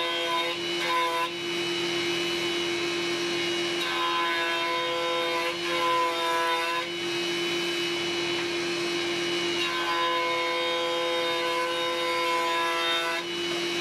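Benchtop jointer running with a steady hum while a wooden board is pushed across its cutterhead in passes, being jointed flat. A short cutting pass ends just after the start, then two longer passes follow, one around the middle and one near the end.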